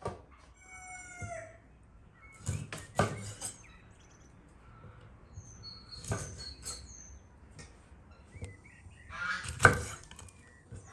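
A chef's knife chopping through raw chicken drumsticks on a wooden board: several sharp strikes, the loudest near the end. A chicken calls once about half a second in, and small birds chirp midway.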